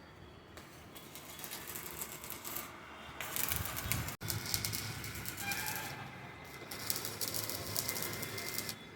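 Crackle of electric arc welding on steel pipe and angle, a dense irregular sizzle of fine clicks. It breaks off briefly about four seconds in and stops near the end.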